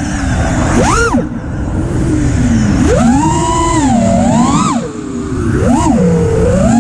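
FPV freestyle quadcopter's brushless motors (T-Motor) whining. The pitch swoops up and down several times as the throttle is punched and chopped, with a sharp climb about a second in and bigger swells from about three seconds in.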